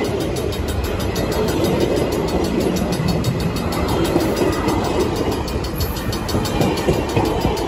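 Amtrak passenger cars, single-level coaches and then bilevel Superliners, rolling past at close range. Their steel wheels run on the rails with a steady, loud noise.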